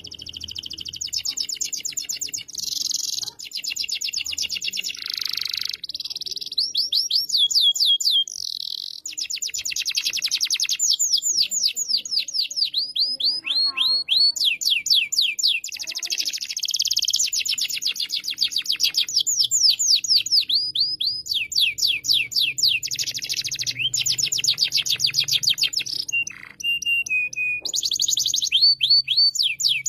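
Domestic canary singing a long, nearly unbroken song of fast trills and rolls: rapid runs of short falling notes, many per second, changing from one phrase to the next with only brief pauses.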